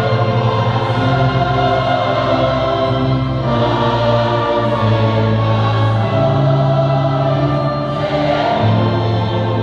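Large mixed choir singing a Portuguese Catholic entrance hymn, accompanied by an orchestra with violins, in sustained chords over a bass line that moves to a new note every second or two.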